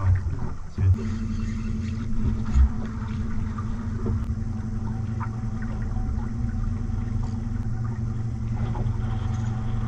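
A skiff's boat motor running steadily at low speed with an even low hum, after a couple of short thumps in the first second.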